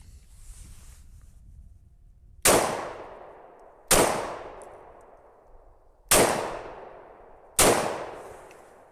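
Glock 43X 9mm pistol fired four times in two pairs, each shot followed by a long fading echo. The shots are aimed at a soft body armor plate.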